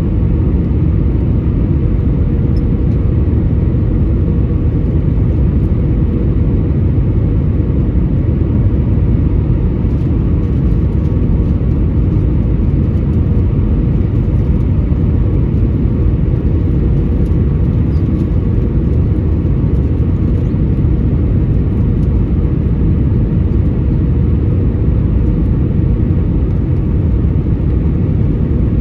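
Steady low rumble of an Airbus A320's cabin noise in flight: engine and airflow noise heard from inside the passenger cabin on approach, with a faint steady hum above it.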